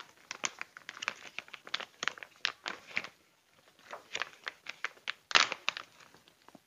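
Clear plastic bag crinkling and rustling as dried root-wood chips are handled inside it, in irregular crackles with a short pause about halfway and a louder crackle near the end.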